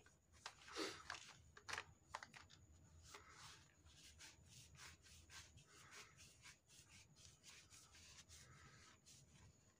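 Faint rubbing and scraping of hands working a plastic poly pipe connector onto the pipe, with many light ticks and scrapes.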